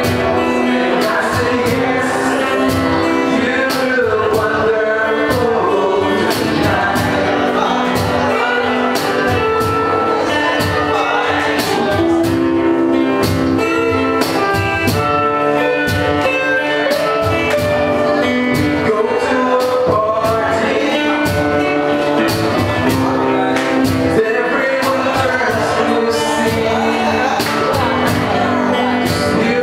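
A live band playing a song: a singer over instruments, with a steady beat of drum hits.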